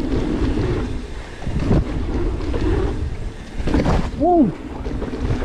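Wind buffeting a body-mounted action camera as a mountain bike rolls fast along a dirt jump line, a steady low rushing with a few brief knocks from the bike over the ground.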